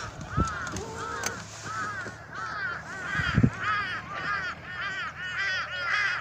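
Crows cawing over and over, several overlapping calls about two or three a second. Two low thumps come through, one near the start and one about halfway.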